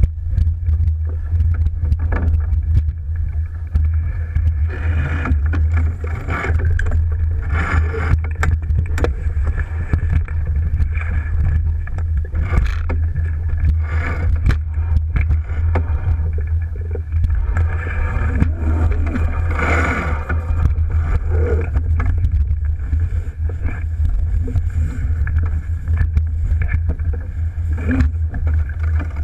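Water rushing and splashing along the hull of an Alberg 30 sailboat moving under sail, with irregular splashes from the bow wave. Under it runs a constant low rumble of wind against the camera.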